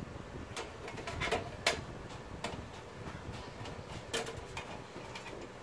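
Light clicks and taps of an aluminium heatsink bar and LED backlight strip being handled against a TV's sheet-metal rear chassis, about five scattered knocks.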